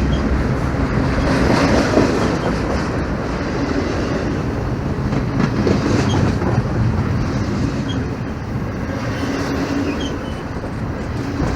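Norfolk Southern freight train rolling past, a steady rumble with some wheel clatter from the cars.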